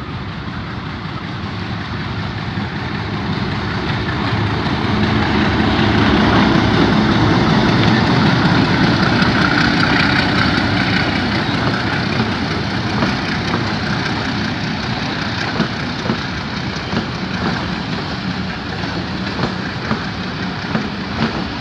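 Pakistan Railways PHA-20 diesel-electric locomotive running past slowly, its engine growing louder as it approaches and loudest as it passes about halfway through. Then the passenger coaches roll by, their wheels clicking over the rail joints.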